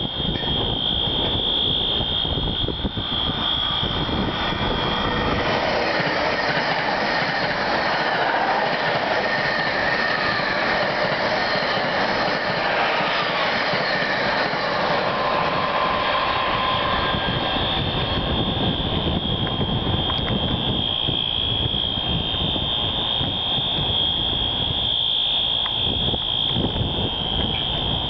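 A station fire alarm sounds one steady high tone. From about five seconds in, an NJ Transit Arrow III electric multiple unit passes at speed with a rushing rumble of wheels and air that covers the alarm. The rush fades after about twenty seconds and the alarm tone is heard again.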